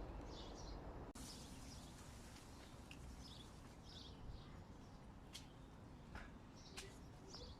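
Near silence outdoors with faint small-bird chirps at intervals, and a few soft clicks in the second half.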